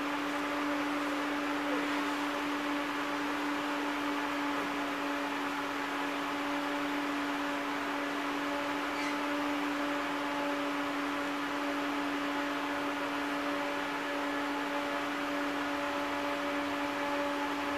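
Steady hum inside a TVZ 71-931 "Vityaz-M" tram: a constant low electrical tone over an even hiss of ventilation. It holds level and pitch, with no rise or fall.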